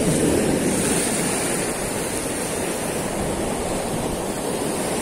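Sea surf breaking and washing over granite shore rocks, a steady rushing wash that is a little louder in the first second or so.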